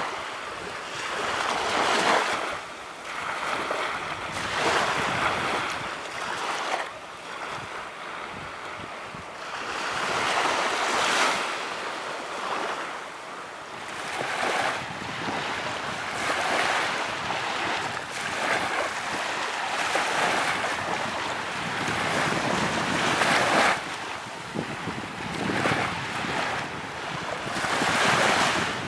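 Small ocean waves breaking and washing up a sandy shore, one surge every two to three seconds.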